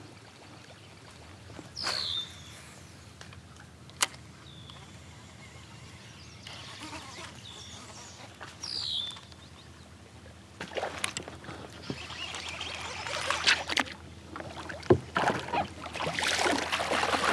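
Quiet water around a fishing kayak, with a bird giving a short falling call twice and a few sharp clicks. Near the end, water splashing as a bass hits the topwater frog lure and thrashes on the line.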